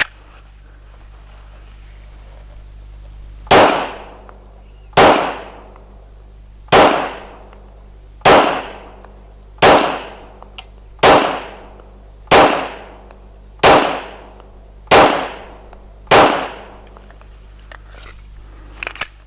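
Glock 17A Gen 4 9mm pistol firing ten single shots at a slow, even pace, about one and a half seconds apart, each shot trailing off briefly.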